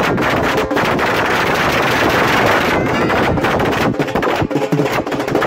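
Rapid, irregular loud bangs and pops over a dense noisy din, thinning out a little after about three seconds.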